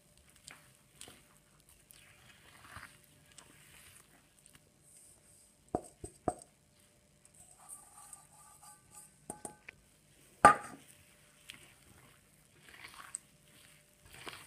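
A hand kneads a soft, crumbly coconut dough in a glazed earthenware bowl, making soft squishing and rubbing sounds. Two sharp knocks come about six seconds in, and a louder single knock about ten seconds in.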